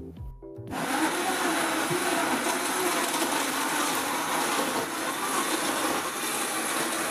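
Countertop blender starting up about a second in and running steadily, crushing a jug of ice and grapefruit.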